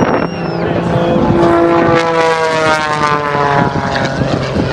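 Propeller airplane engine flying past, its pitch falling slowly as it goes by.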